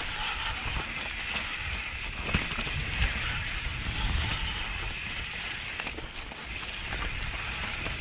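Mountain bike rolling fast downhill over dry leaf litter: a steady rushing of tyres through leaves with a low rumble beneath, and a couple of sharp knocks from the bike over roots or bumps around two and three seconds in.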